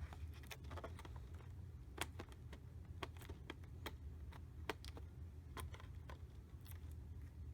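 Irregular light clicks and taps of hands working plastic figure packaging, picking at the tape that holds the figure down, over a steady low hum.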